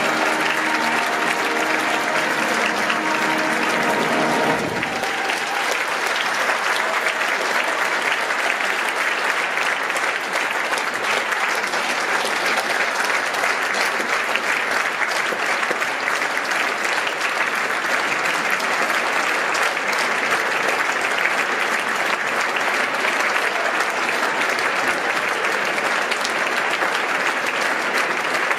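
Theatre audience applauding steadily at the end of a ballet. The orchestra's final held chord sounds under the clapping for the first few seconds and stops about four and a half seconds in.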